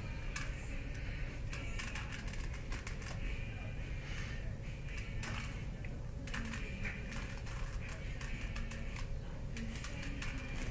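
Rubik's cube being turned by hand: irregular plastic clicks and clacks as its layers are rotated, over a steady low background hum.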